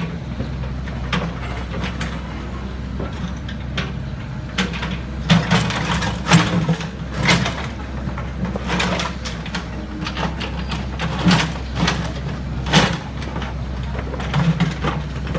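Heavy diesel engine running steadily, with irregular short sharp knocks and rattles over it.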